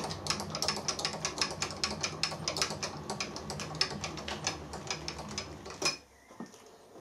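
Turret milling machine's spindle running, turning a keyless drill chuck with a dowel pin in it against a dial test indicator while its runout is checked: a steady low hum with a rapid, even ticking clatter. The machine is switched off about six seconds in and the sound stops suddenly.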